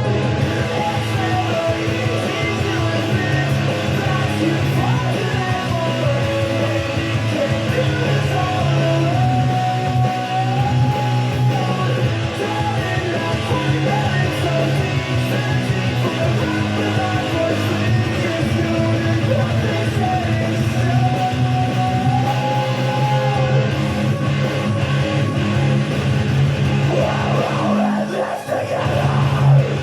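Guitar-driven metalcore song played as a guitar cover: steady low guitar and bass notes under a wavering melody line.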